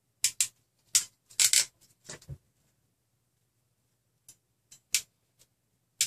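Hand crimping tool crimping terminals onto wire ends: irregular clusters of sharp clicks and short snaps, with a pause of about two seconds in the middle.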